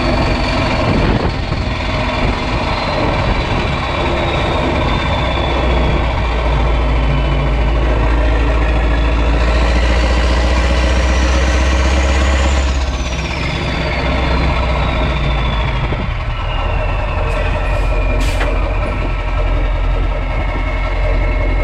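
Renault Magnum truck's 16.4-litre Mack E9 V8 diesel running loud through an open exhaust, with a turbocharger whistle. The engine pulls harder and the whistle climbs until about 13 seconds in, when the engine note drops and the whistle slowly falls away as the throttle comes off.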